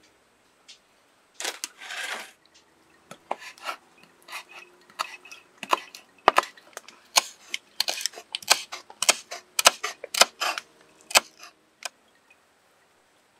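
Kitchen knife slicing green leaves against a wooden cutting board: a run of sharp, irregular chops that comes thicker in the second half, with a short scraping rustle near the start.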